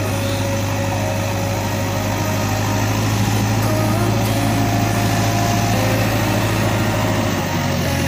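A steady, low, engine-like drone, with scattered short higher tones above it.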